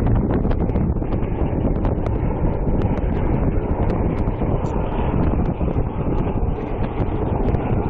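Strong wind buffeting the microphone, a steady low rumble, with a few faint scattered clicks over it.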